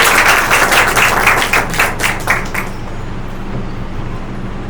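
Audience applauding, thinning into a few separate claps and dying away about two and a half seconds in, leaving a steady low hum.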